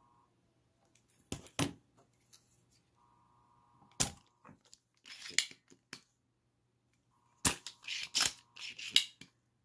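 Spring-loaded solder sucker being cocked and fired at a soldering iron's tip to pull molten solder off motherboard pins: clusters of sharp plunger snaps and clicks about a second and a half in, around four to six seconds, and again from about seven and a half seconds. The sucker is starting to clog with solder.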